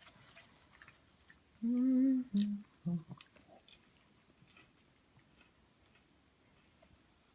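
Popcorn being crunched and chewed in small scattered clicks. About two seconds in there is a short hum in three parts, each lower than the last, which is the loudest sound.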